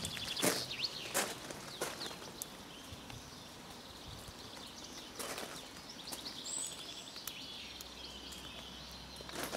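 Footsteps on a gravel path: three steps in the first two seconds, then single steps about five seconds in and near the end, with birds chirping in the background.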